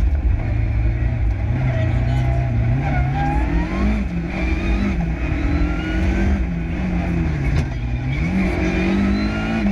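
Original works Lancia Delta Integrale Group A rally car's turbocharged four-cylinder engine, heard from inside the cabin, with the revs climbing and falling several times as the car accelerates and backs off.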